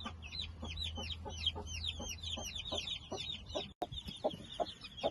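Chicks peeping constantly in many short, high, falling chirps, with short low clucks from the Brahma mother hen among them.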